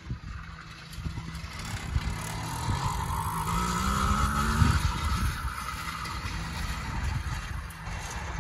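80cc two-stroke bicycle engine running under load as the motorized bike rides by. Its pitch climbs for a couple of seconds, peaking a little past the middle, then drops away.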